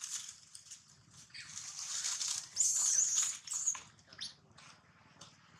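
Young long-tailed macaques squealing in high-pitched, wavering screeches, loudest from about two and a half to four seconds in, with a short chirp just after. A rustling hiss of dry leaves runs under them.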